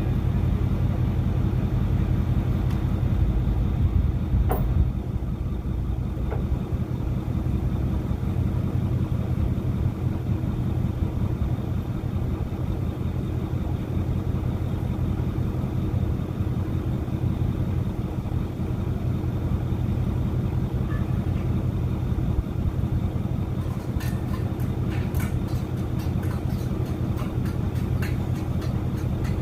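An engine idling steadily, with a run of light clicks near the end.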